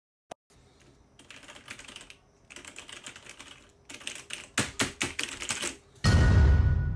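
Computer keyboard typing, several bursts of quick clicks as the lines of text appear. About six seconds in, a sudden loud low hit comes in and rings on with a steady tone, the loudest sound here.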